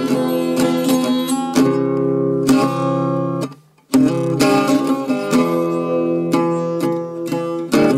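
Background music: acoustic guitar, plucked and strummed. It drops out briefly a little past halfway, then resumes.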